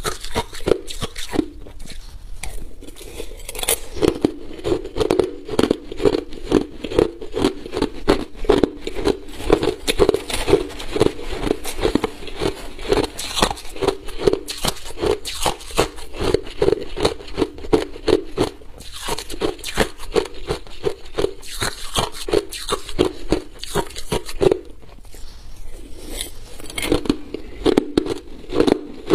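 Crushed ice being chewed: rapid crackling crunches as the ice breaks between the teeth, in a steady chewing rhythm of a few bites a second, with short pauses between mouthfuls.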